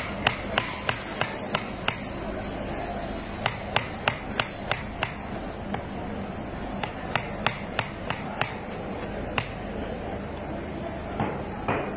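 Knife blade knocking sharply on a cutting board as raw green mango is chopped, in quick runs of about three strokes a second with short pauses between runs.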